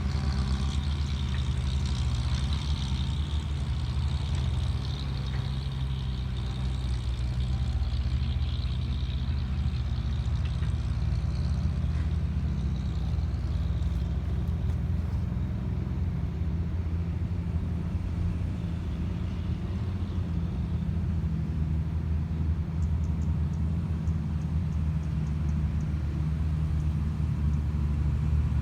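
Heavy diesel engine running steadily at low revs, with an even, low pitch.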